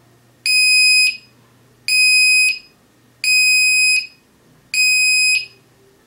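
The buzzer on a homemade laser tripwire alarm board sounds four high-pitched beeps, each just over half a second long and about one and a half seconds apart. This is the alarm being tripped: its light-dependent resistor has lost the laser beam.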